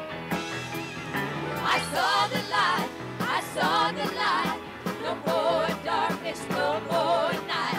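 Live band playing with a group of women singing in harmony. The voices come in about a second and a half in, over the band's steady beat.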